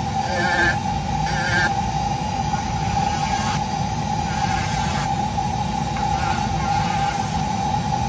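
Handheld rotary tool spinning a Kutzall carbide burr: a steady high whine, with a wavering higher pitch coming and going in short stretches as the burr grinds into the wood.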